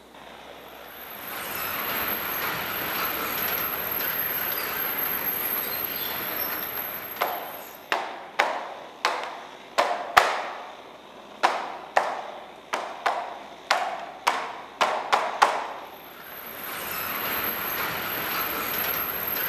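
A steady rushing noise, then about fifteen sharp strikes, each ringing briefly as it dies away, at an uneven pace of one or two a second, after which the rushing noise returns.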